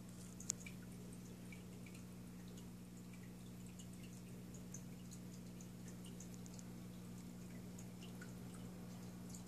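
Aquarium pump humming faintly and steadily, with scattered small drips of water and one sharp click about half a second in.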